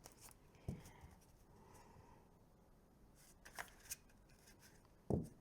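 Thick matte-finish tarot cards being side-riffle shuffled by hand: faint flicking of card edges with a few sharp taps, and a louder thump near the end.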